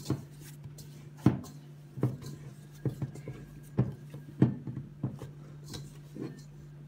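A hand punching down risen, sticky sweet-bread dough in a stainless steel mixing bowl: irregular dull thumps and squishes about once a second. A steady low hum runs underneath.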